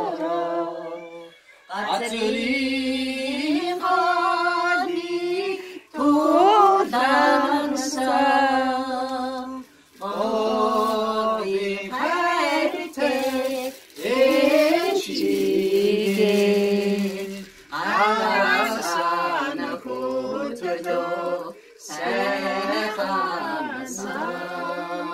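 A voice singing a slow song without accompaniment, in phrases of about four seconds with short pauses for breath between them.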